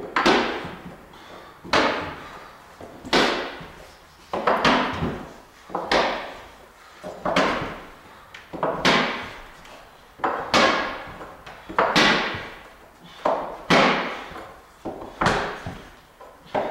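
Wooden pegs being knocked into the holes of a 16-foot wooden climbing pegboard, one hard knock about every second and a half, some doubled, during a hand-over-hand descent. Each knock echoes through the steel-walled building.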